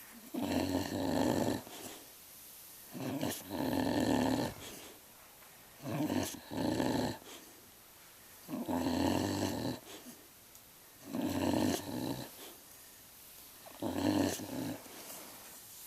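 An animal snoring and grunting: six snores in a slow, regular rhythm, about one every two and a half seconds, some breaking into two parts.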